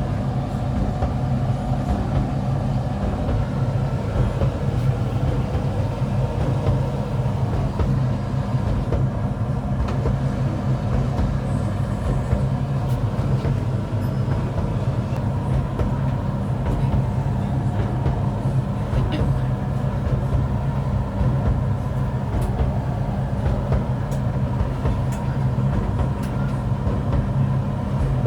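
Hoover H-Dry 600 heat pump tumble dryer running near the end of its extra dry cycle: a steady low hum and rumble from the machine and the turning drum, with a few faint ticks.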